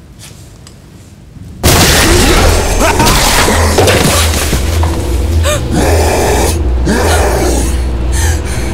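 Horror-film sound design: a low hum, then about two seconds in a sudden loud boom that gives way to a loud low drone, with wailing, growling creature cries rising and falling over it.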